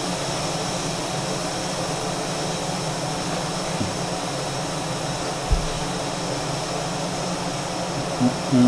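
Steady, even rushing noise of moving air, like a running fan or air conditioner, with one soft low thump about five and a half seconds in.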